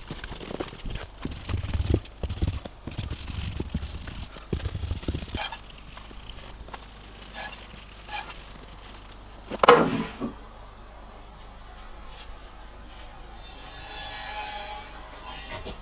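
A cloth rubbing finish over a rough wooden coat rack in a run of quick strokes, which die away after about five seconds. A single sharp knock comes just under ten seconds in, and a brief high-pitched sound near the end.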